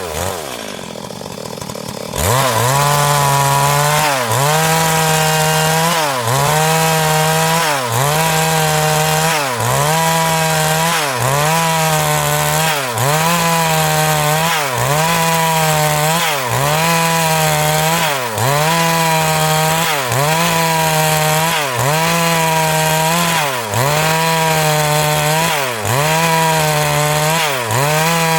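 Stihl MS382 two-stroke chainsaw ripping lengthwise through a hardwood log. The engine drops in pitch near the start, then runs at high revs, sagging and recovering about every two seconds as it bites into the wood.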